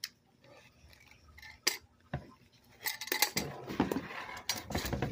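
Scattered clicks and knocks of a metal tufting gun and its parts being handled in a cardboard box, becoming a denser clinking and rustling about three seconds in.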